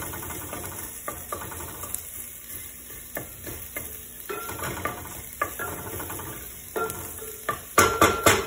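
A spatula stirring and scraping garlic and parsley around a stainless steel pot, with the oil sizzling underneath. Short scrapes and knocks repeat throughout, with the loudest cluster near the end.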